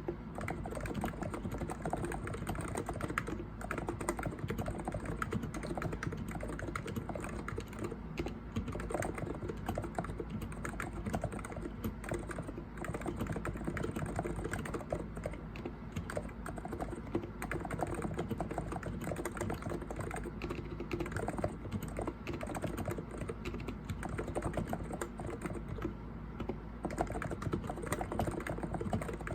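Continuous fast typing on a COX Endeavor electro-capacitive (contactless) keyboard with 50 g switches: a dense, unbroken stream of keystrokes.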